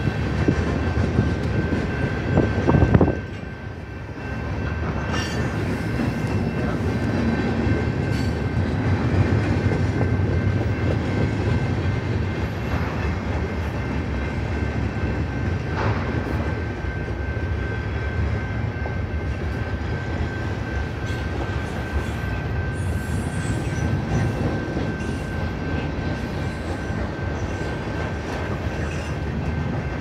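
Freight train cars rolling past at a grade crossing: a steady rumble of steel wheels on the rails with clacking over the rail joints. It is louder for the first three seconds, then drops off abruptly and settles into an even rumble.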